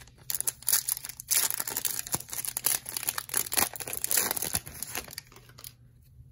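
Foil wrapper of a Topps Chrome trading-card pack crinkling and tearing as it is peeled open by hand: a dense run of crackles and snaps that stops just before the end.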